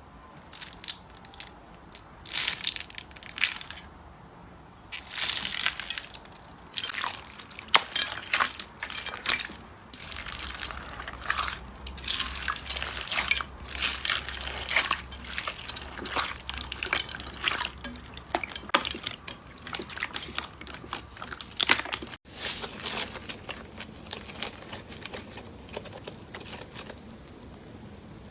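Slime being squeezed and pressed by hand, giving a dense, irregular run of crackling pops, cut off abruptly about two-thirds of the way through and starting again.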